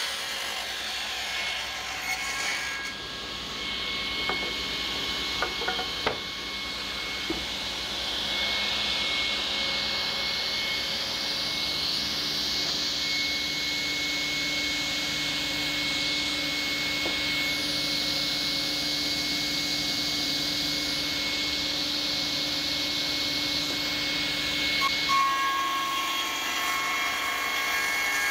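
Sliding table panel saw running with a steady whine, with a few knocks of the board being handled in the first seconds. Then the blade cuts through a beech board with a steady hiss for about fifteen seconds, and near the end the cut finishes and the saw runs on alone.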